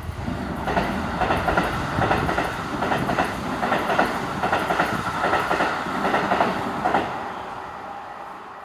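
Train passing a level crossing, its wheels clattering rapidly over the rail joints; the clatter stops about seven seconds in and the rumble fades away.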